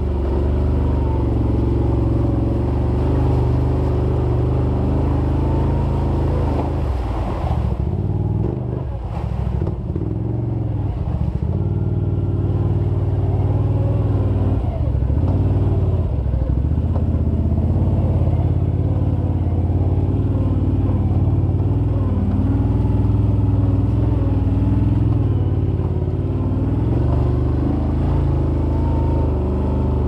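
Can-Am Outlander 800 XT ATV's V-twin engine running through an HMF Swamp XL slip-on exhaust while riding. The engine note dips and wavers as the throttle changes for a few seconds, starting about seven seconds in, then holds steady again.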